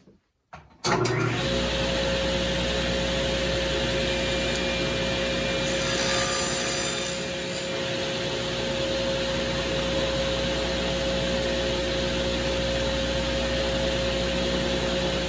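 Table saw switched on about a second in, its motor and blade running with a steady hum. Around six seconds in there is a short extra hiss as the blade trims a small wooden piece, and then the saw runs on.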